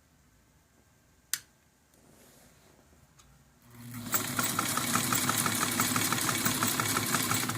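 Singer 185K sewing machine run from its foot pedal: after a single click about a second in, the motor spins up about halfway through and runs steadily with a fast, even clatter of about seven needle strokes a second, stopping at the end.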